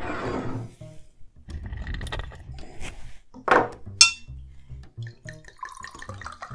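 A corkscrew drawing the cork out of a glass bottle of mead, then a sharp glass clink about four seconds in. Near the end the mead pours from the bottle into a wine glass, its pitch rising as the glass fills.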